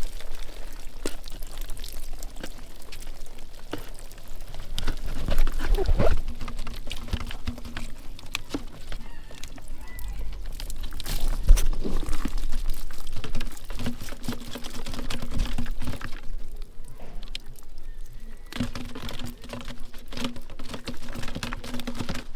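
Water pouring and splashing, with many small knocks and splashes, as a bamboo darki fish trap is handled and emptied at the water's edge. A faint steady low hum comes and goes in the second half.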